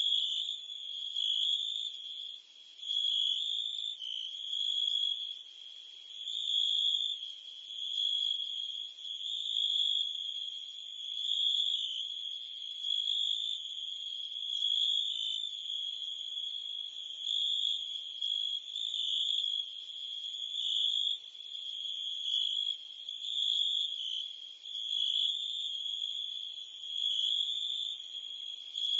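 Crickets and cicadas chirping in a steady, high-pitched chorus that swells and eases every second and a half to two seconds.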